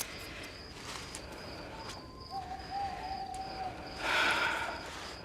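Rural ambience with a cricket chirping in an even, high-pitched pulse, a single held bird-like note lasting about a second and a half in the middle, and a short rustle about four seconds in.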